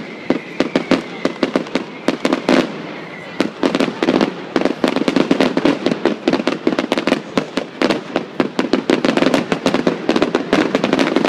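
Aerial fireworks display: rapid, irregular bangs and crackles of shells bursting overhead. They thin out briefly about four seconds in, then come thick and fast.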